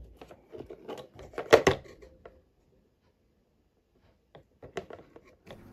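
Hands handling a printed circuit board: a run of small clicks and knocks, the loudest about a second and a half in, then a few lighter clicks near the end.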